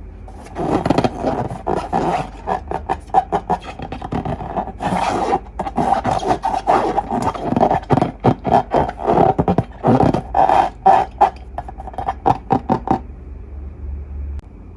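Glossy slime being squeezed and worked by hand, giving a dense run of quick sticky crackles and squelches. It starts about half a second in and stops about two seconds before the end.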